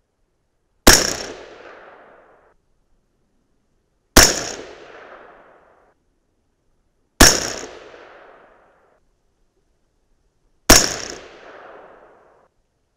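Four shots from a suppressed .223 Remington AR-style semi-automatic rifle, spaced about three to three and a half seconds apart, each sharp crack followed by about a second and a half of echo dying away.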